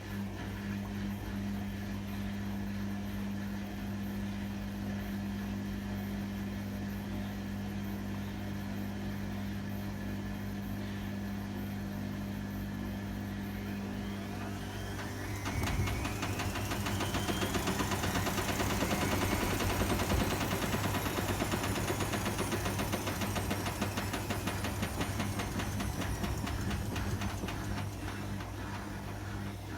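Hotpoint WMA30 washing machine on an unbalanced spin: a steady motor hum, then about halfway the drum speeds up with a rising whine and rapid rattling, before the whine falls back as the spin winds down.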